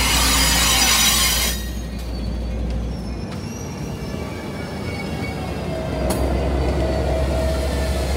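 Amtrak Piedmont passenger train crawling past at low speed. A loud hiss cuts off about a second and a half in, then faint thin squeals come from the wheels. About six seconds in, the diesel locomotive's steady hum and low rumble come in as it draws level.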